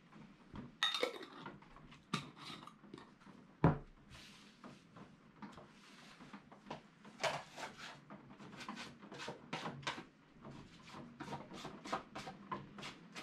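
Handling sounds of a glue brush and small glue dish on a work table: a clink about a second in, a sharp knock a little later, then a run of short scratchy rubbing and tapping sounds.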